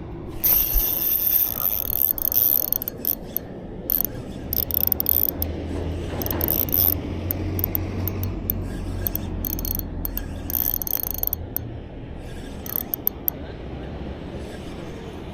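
Shimano Vanquish spinning reel being wound, its gears giving a high whirring in short start-stop spurts.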